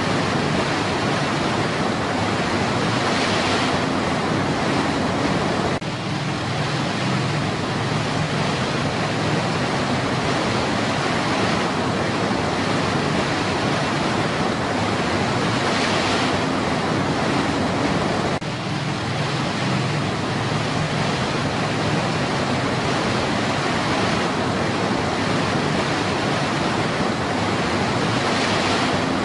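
Steady rush of a rocky stream's rapids, white water pouring over small cascades, with two brief dips in the sound.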